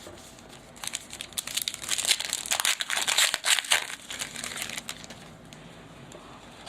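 Trading-card pack wrapper crinkling and crackling as it is handled, for about three seconds, loudest in the middle, followed by quieter handling noise.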